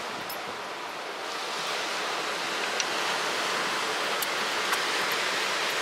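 Ocean surf rushing steadily, swelling a little after about a second.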